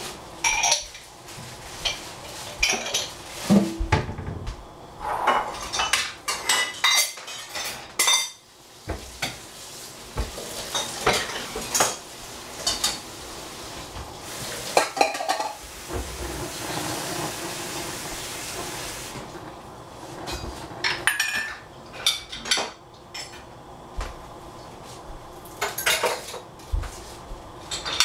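Kitchen clatter of metal cookware and utensils being handled: irregular sharp clinks, knocks and scrapes, with a steady hiss for a few seconds past the middle.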